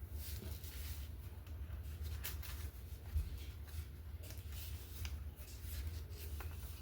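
Faint rustling of paper and light taps and clicks as paper craft pieces are handled, over a steady low hum.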